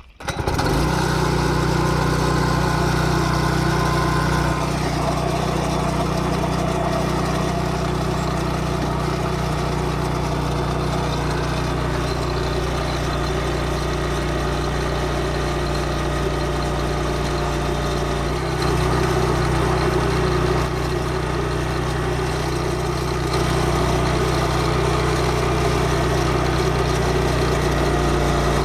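An engine runs steadily at constant speed and cuts in abruptly. Its pitch shifts slightly a few times.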